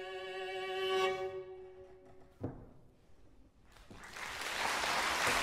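Solo cello holds a final bowed note that ends about a second in and dies away in the hall's reverberation. After a brief pause with one soft knock, audience applause begins and swells.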